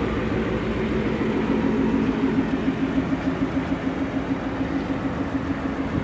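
2019 Ford Mustang GT's 5.0 V8 idling steadily through a Roush cat-back exhaust, with an even, regular pulse.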